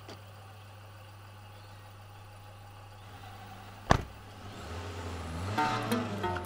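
Car engine idling steadily, a sharp slam of the car door about four seconds in, then the engine rising in revs as the car pulls away. Music fades in near the end.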